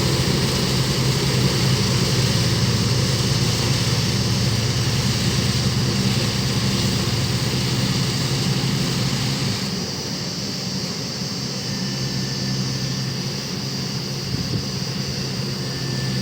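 Heavy diesel engine of a road-construction machine running steadily; about ten seconds in the sound changes abruptly and becomes somewhat quieter.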